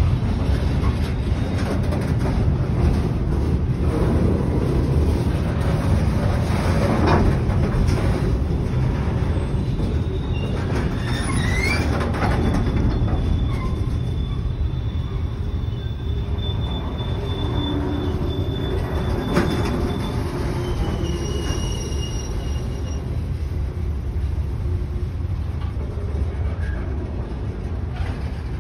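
Container wagons of a freight train rolling past at a steady speed: a continuous low rumble of steel wheels on rail, with a few brief high wheel squeals in the middle.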